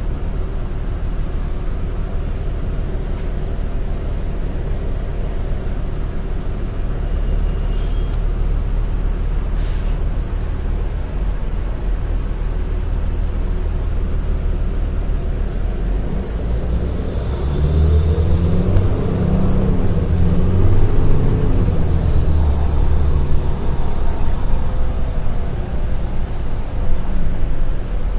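Cabin sound of a New Flyer D40LF city bus with a Cummins ISL9 diesel: the engine idles steadily, with a couple of short hisses about eight and ten seconds in. Past the middle the engine revs up as the bus pulls away, its pitch rising and falling, with a higher whine over it.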